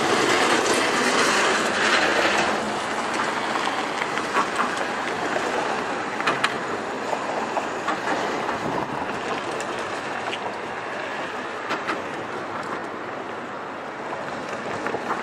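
Road traffic on a bridge: a steady rush of passing vehicles and tyre noise, loudest in the first two seconds or so as a heavy truck goes by, with a few faint clicks scattered through it.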